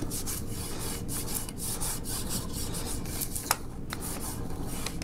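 A hand rubbing an adhesive build-surface sheet down onto a 3D printer's aluminium bed while the plastic backing liner is pulled away: repeated dry swishing strokes, with one sharp tick about three and a half seconds in.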